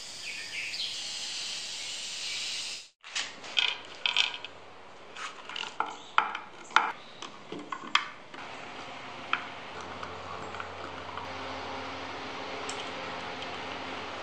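An aerosol spray can hissing steadily for about three seconds as finish goes onto wood. It cuts off, and then come sharp clicks and knocks of small metal screws and a screwdriver driving screws into a wooden panel, followed by quieter handling noise.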